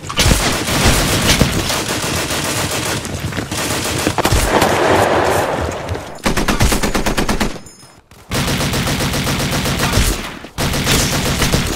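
Automatic machine-gun fire, a dense rapid rattle of shots, in long bursts that break off for a moment a little past halfway and again briefly near the end.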